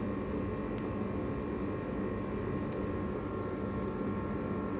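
Butter melting and sizzling in hot olive oil in a non-stick frying pan, with scattered faint pops over a steady low hum.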